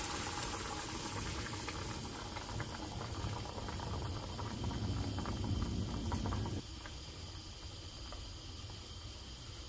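Paella broth bubbling and simmering in a wide paella pan just after the stock has been poured in, a wet bubbling with many small pops. About two-thirds of the way through a low rumble under it stops suddenly, leaving a quieter fine bubbling.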